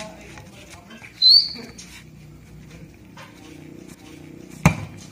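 A volleyball struck hard by hand near the end, a single sharp slap. About a second in comes a short, high chirp that rises in pitch, the loudest sound here.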